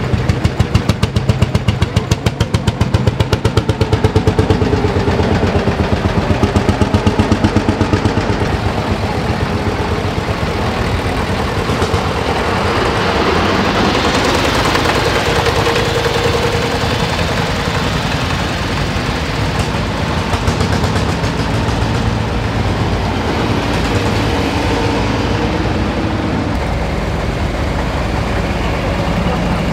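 Vintage tractor engines running as a procession of tractors drives slowly past. For the first several seconds there is a rapid, even pulsing beat from a Lanz Bulldog's single-cylinder two-stroke engine. After that the engines blend into a steadier mix, which grows louder around the middle as a tractor passes close.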